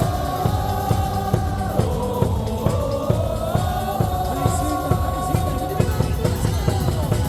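Baseball crowd singing a cheer song in unison over amplified music, with a steady drum beat underneath.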